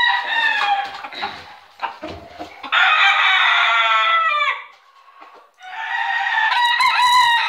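Roosters crowing: the end of one crow in the first second, then two long crows starting about 3 and 5.5 seconds in, the first trailing off in a falling note.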